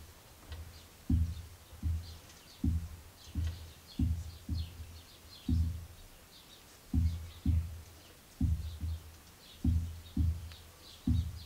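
Lathe spindle and collet chuck being turned round by hand in short pushes to check runout: a series of low, dull thuds, mostly in pairs, about every second and a half, with faint high chirps above them.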